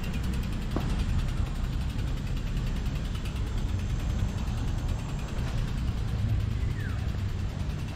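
Steady low rumble of wind buffeting an action camera's microphone, with a faint click about a second in and a short falling chirp near the end.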